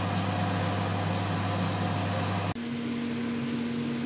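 Steady electric hum of a running oven, with its fan. About two and a half seconds in it cuts off abruptly and a different steady hum with a higher tone takes over.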